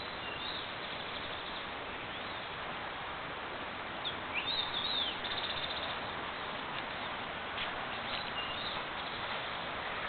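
Small birds chirping in woodland, with a quick run of chirps about four to five seconds in, over a steady hiss.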